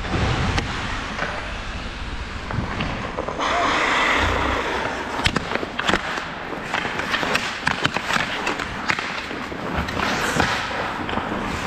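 Ice hockey skates scraping and carving on the ice, with a louder scraping rush about three and a half seconds in. From about five seconds on, sharp clacks of sticks hitting each other and the puck as players battle for it.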